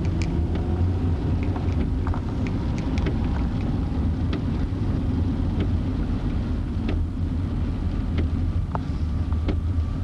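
Car in motion heard from inside the cabin: a steady low road-and-engine rumble, with scattered light knocks and clicks.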